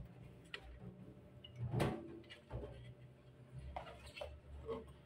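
A few scattered light knocks and clicks from a plastic water-purifier filter housing being handled over a stainless steel sink, the loudest a little under two seconds in.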